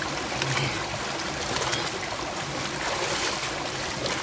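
Mountain stream rushing over boulders, with short splashes as a man lowers himself into the river and splashes water over himself.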